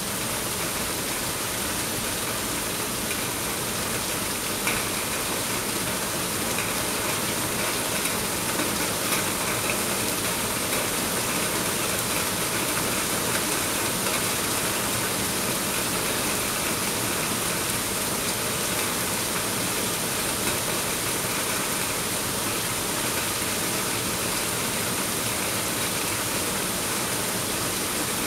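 Heavy rain falling steadily on forest foliage and a puddled dirt road, an even hiss with no let-up.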